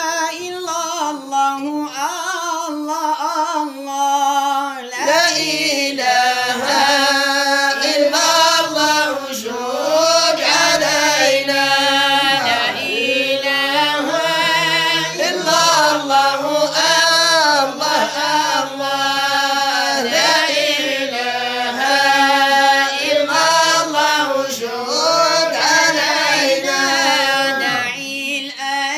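Voice singing an Arabic madih nabawi, a devotional song in praise of the Prophet, in long phrases of wavering, ornamented notes.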